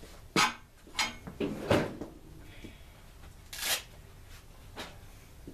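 A few short, sharp clunks and knocks spread over several seconds, with a brief hiss a little past halfway; no engine is running.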